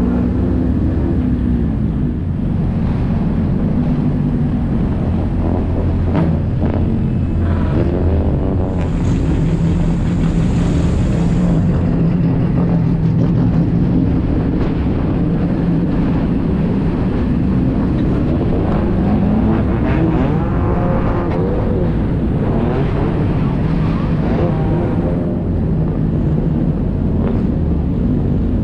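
Sport compact race car's engine running at low speed, heard from inside the car: a steady low drone that rises and falls a little in pitch.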